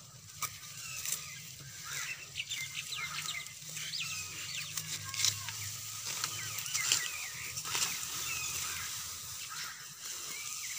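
Hand sickle cutting clumps of green fodder grass at the base, a sharp snip with each stroke at uneven intervals, with birds chirping.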